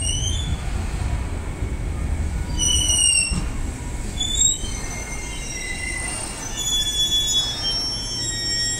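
Enshu Railway electric train pulling into the platform as it slows, with a steady low rumble under high-pitched squealing. The squeal comes in short bursts early on, then holds as several high tones at once through the second half.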